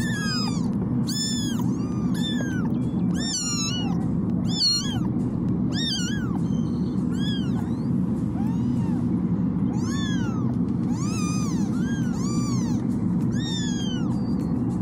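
Young kittens meowing over and over in a carrier, short high cries that rise and fall, about one or two a second and sometimes overlapping. A steady low hum runs underneath.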